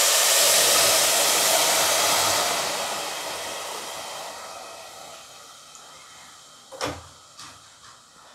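Water poured into a hot aluminium pressure cooker onto rice fried in oil: a loud rushing hiss that eases off after about two and a half seconds and fades over the next few seconds as the water settles. A single knock about seven seconds in.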